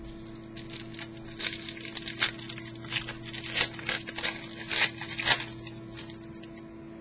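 Glossy trading cards being handled and slid against one another in the hands, a quick irregular series of papery scrapes and flicks for about five seconds, over a steady low hum.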